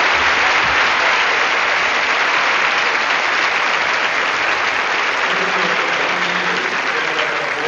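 Large arena crowd applauding, dense and sustained, easing off slightly near the end.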